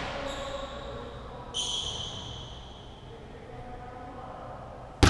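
Basketball play in a large echoing gym: a ringing tone starts about a second and a half in and fades away, then a sharp, loud thud of the basketball comes near the end.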